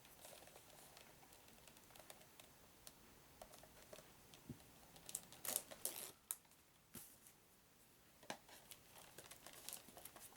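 Plastic shrink-wrap crinkling and tearing as it is picked at and peeled off a small cardboard box. Faint scattered crackles, with a louder flurry about five to six seconds in.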